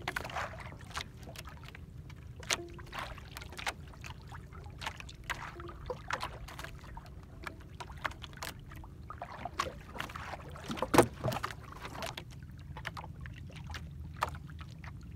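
Steady low rumble of wind and sea around a small outrigger boat, with scattered light clicks and knocks as a longline hook is worked out of a freshly caught fish. The loudest knock comes about eleven seconds in.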